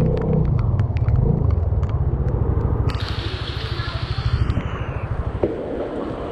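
Motor scooter engine running under way, a low pulsing rumble that is strongest in the first couple of seconds and eases off toward the end, with wind noise over it.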